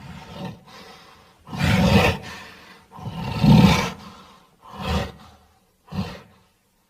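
Tyrannosaurus rex creature sound effects: a string of separate roars. They build to the loudest one about three and a half seconds in, followed by two shorter ones near the end.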